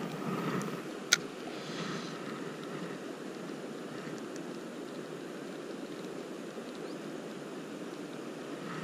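Steady rush of a flowing river current, with one sharp click about a second in.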